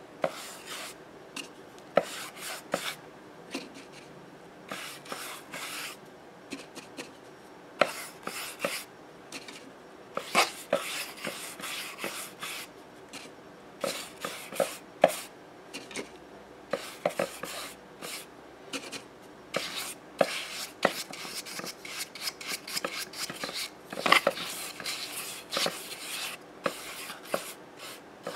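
Short, irregular scratchy strokes and light taps of a brush working over the paper cone of a 32 cm Audax loudspeaker.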